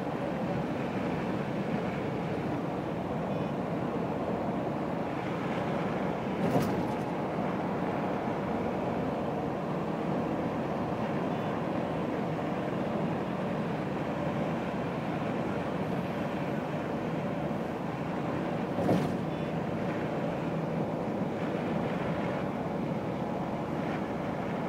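Steady road and engine noise heard from inside a vehicle travelling at speed on a highway, with two brief sharp knocks, one about six seconds in and one about nineteen seconds in.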